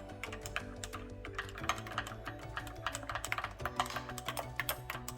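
Background music with held notes, overlaid by a run of irregular light clicks and taps.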